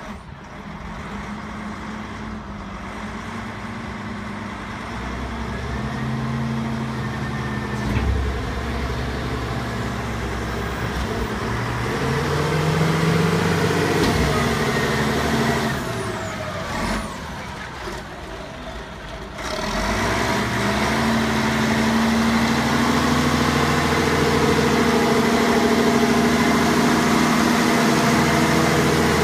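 Volvo L150 wheel loader's diesel engine running, its pitch rising and falling as it is revved, dropping lower for a few seconds just past the middle and then running up and holding higher near the end. A single clunk sounds about a quarter of the way in.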